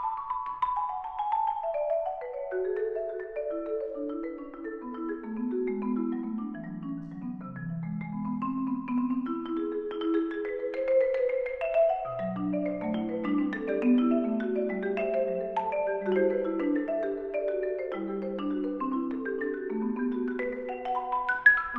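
Four players on two concert marimbas playing fast interlocking hocket patterns. The run of notes slides down into the low register over the first eight seconds, then climbs back up and spreads into denser figures across the range.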